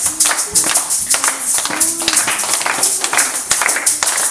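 Live joropo music from a small llanero ensemble: a voice sings held notes over quick, steady percussion strokes, about four a second.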